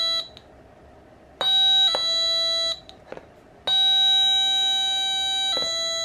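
Two-tone electronic chime from an NE555 doorbell kit's small speaker, a buzzy steady tone that steps down from a higher pitch to a slightly lower one each time the push button is pressed and let go. One ding-dong trails off just at the start, a short one comes about a second and a half in, and a long high tone from near four seconds drops to the lower pitch near the end.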